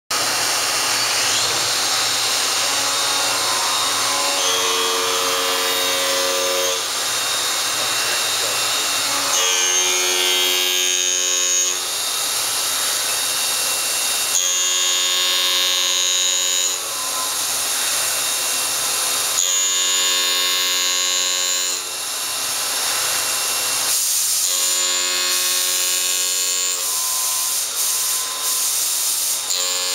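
Mighty Viper V950 CNC vertical machining center milling a part under flood coolant: the spindle runs steadily and the coolant spray hisses. A pitched cutting tone comes in for about two seconds, roughly every five seconds, as the cutter makes repeated passes.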